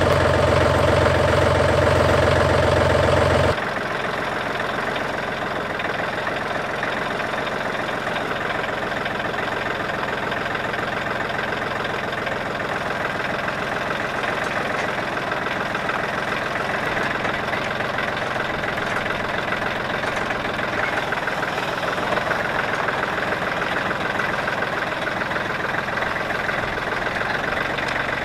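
John Deere compact tractor's diesel engine idling close by, then, from about three and a half seconds in, running steadily as the tractor drives, heard from a camera mounted on the tractor with less bass.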